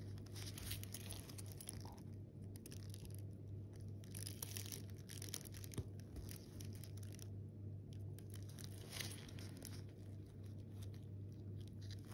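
Faint rustling and light scratchy clicks of small hand tools working a watch dial off its movement, over a steady low hum.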